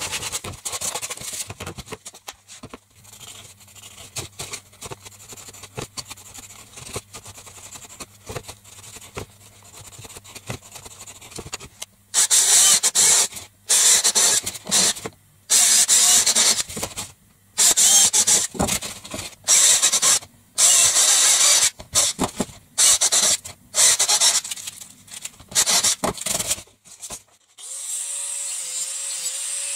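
A power drill boring holes through a grey PVC pipe in about a dozen short, loud bursts, each cutting off suddenly. Near the end an angle grinder starts up and runs steadily with a slightly wavering whine. Before the drilling, gloved hands rub the pipe.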